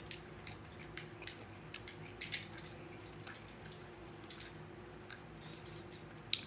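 Wet mouth sounds of someone chewing food: scattered soft clicks and smacks, with a fork working through noodles in a foam takeout box, over a faint steady hum.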